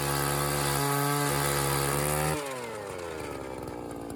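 Small gas engine running steadily at high revs. About two seconds in, the throttle is let off and the pitch falls as the engine slows toward idle.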